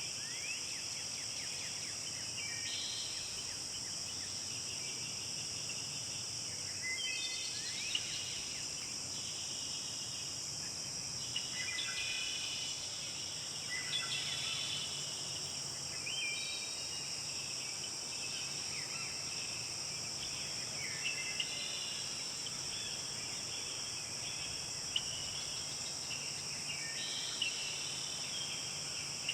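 Steady high-pitched insect chorus, like crickets, with songbirds singing short phrases of quick, sliding notes every few seconds over it.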